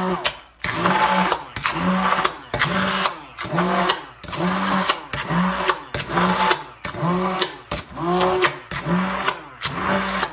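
Handheld stick blender running in a bowl of thick mayonnaise, whipping the egg and oil emulsion. Its motor pitch dips and recovers in a regular rhythm, a bit more than once a second, as the blade head is worked up and down through the thick sauce.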